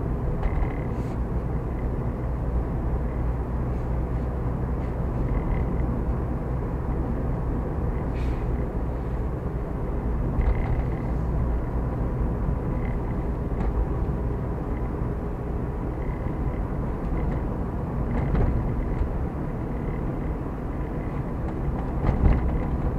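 Car driving along a city street: steady engine and tyre rumble, with a few brief knocks scattered through.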